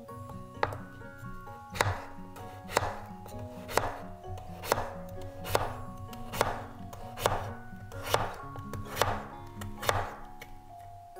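Chef's knife slicing a peeled raw potato on a wooden cutting board, each stroke ending in a sharp knock of the blade on the board, in an even rhythm of about one a second.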